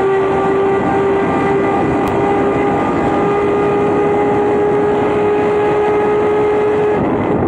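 Turismo Carretera Torino race car's straight-six engine running flat out at high, steady revs, heard from inside the cockpit over wind and road noise. Near the end the engine note breaks off briefly and comes back slightly lower.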